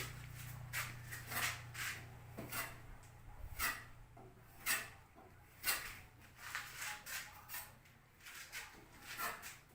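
A series of irregular light clicks and knocks, about one or two a second, over a low hum that fades out about three and a half seconds in.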